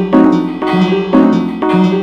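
Music: a piano-like melody of struck notes changing pitch over a steady beat, about two notes a second.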